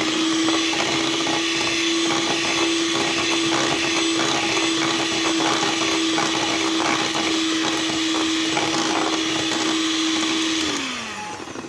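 Electric hand mixer running at a steady speed, its wire beaters whipping butter, sugar and egg batter in a metal bowl, with scattered light clicks. The motor winds down and stops about a second before the end.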